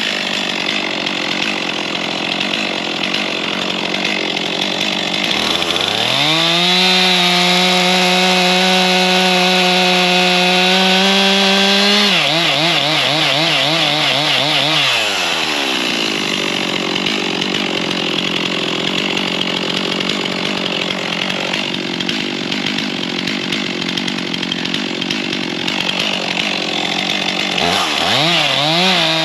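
Gasoline chainsaw revving to full throttle about five seconds in and holding a steady high pitch. Its pitch then wavers under load in the cut before dropping back to idle, and it revs up again near the end.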